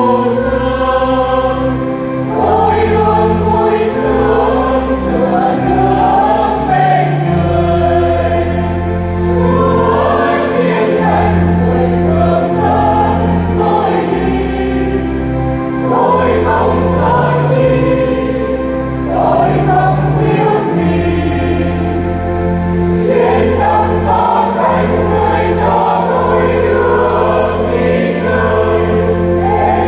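A church choir singing a Vietnamese Catholic hymn in several voices over long, sustained low accompaniment notes.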